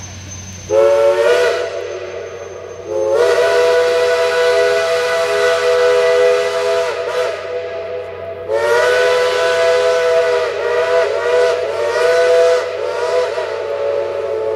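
Steam locomotive whistle sounding a chord of several tones: a short blast about a second in, then two long blasts, the second dipping and wavering in pitch several times before it carries on more softly.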